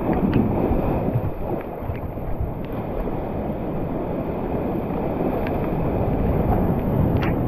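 Waves breaking and washing up a beach, heard as a steady roar with wind buffeting the microphone.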